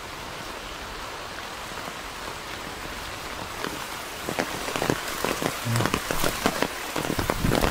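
Steady rain falling, an even hiss. A little past halfway through, sharper, closer drop taps begin to patter in over it.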